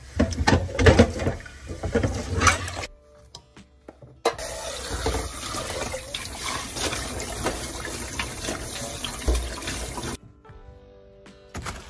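Kitchen tap running into a stainless steel sink as a pot and a utensil are rinsed under the stream: a steady rush of water that starts about four seconds in and cuts off suddenly about ten seconds in. Before it come a few seconds of loud irregular knocks and handling noise.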